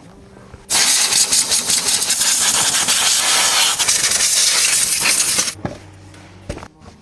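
A loud, steady hiss starts under a second in and cuts off sharply about five seconds later. Faint clicks follow in the quieter part.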